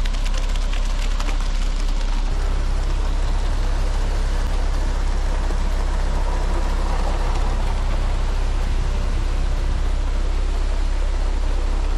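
Concrete mixer truck's engine running with a steady low drone while wet concrete slides down the chute and spatters into the wall forms.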